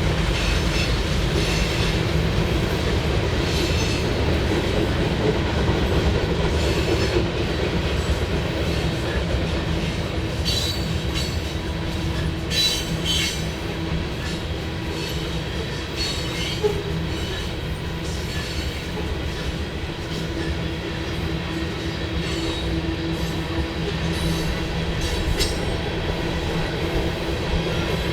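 Union Pacific manifest freight train rolling past: a steady rumble of the cars with wheels clicking over rail joints and brief high wheel squeals now and then.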